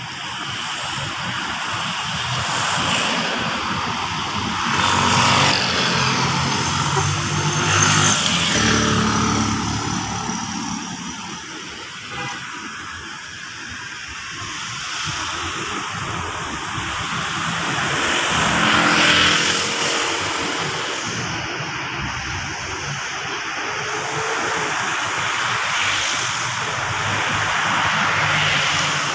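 Road traffic passing on a wet road: tyres hissing and engines humming as vehicles go by one after another, the sound swelling and fading with each pass. The loudest passes come about five to eight seconds in and again around nineteen seconds in.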